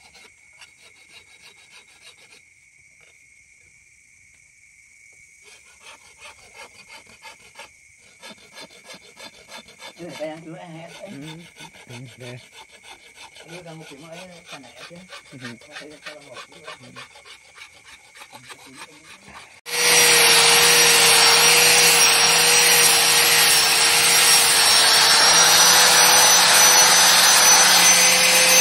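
A hand file rasping in faint, steady back-and-forth strokes over a golok machete and its carved wooden handle. About twenty seconds in, an angle grinder with a sanding pad starts suddenly and runs loudly with a steady whine against the steel blade.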